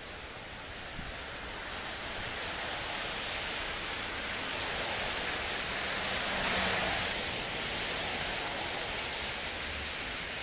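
Steady hiss of rain and car tyres on a wet street, swelling as a van passes close by about six seconds in.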